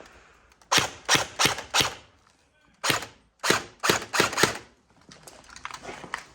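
Airsoft gun firing single shots in two strings, four sharp cracks and then about six more, roughly three a second. The firing stops as the magazine runs empty.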